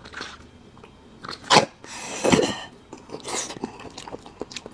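Marrow being sucked out of a hollow section of cooked bone held to the lips: two loud slurps, about a second and a half in and just after two seconds, then a softer one about three and a half seconds in.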